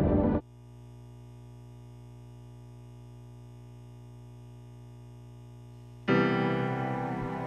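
Ambient music cuts off abruptly, leaving a quiet steady drone of several held notes. About six seconds in, an electric piano strikes a loud chord that rings and slowly fades, opening a piano intro.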